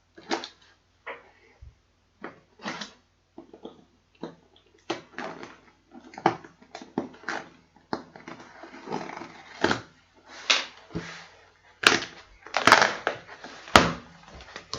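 A cardboard box and its packaging being opened and handled by hand: a string of short crinkles, scrapes and knocks with rustling between them, louder near the end.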